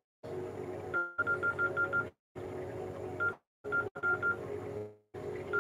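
Keypad tones of a Sagem my100X mobile phone as its buttons are pressed: short beeps, a quick run of about six a little over a second in and a few more around three and four seconds. They play over steadier lower tones, and the sound drops out briefly several times.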